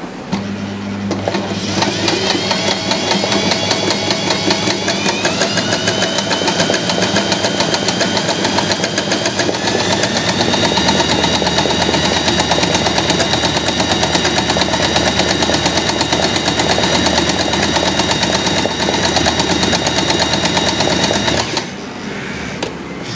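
Usha Janome Excella electric sewing machine running at speed, doing embroidery stitching on hooped cloth: rapid steady needle strokes over a motor whine that rises in pitch over the first few seconds, then holds steady. It stops suddenly about a second and a half before the end.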